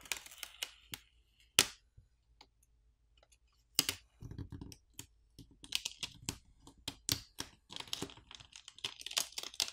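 Small sharp clicks and crackling from a smartphone's flex cable being unclipped from its board connector and peeled off the adhesive on the phone's midframe. There are a few separate ticks at first, then a quick run of clicks and crackles through the second half.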